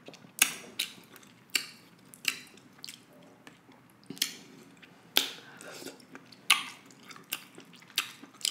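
Close-miked chewing of buttery deshelled seafood: wet mouth smacks and clicks at an uneven pace, about one or two a second, with soft squishing as fingers pick through the sauced seafood.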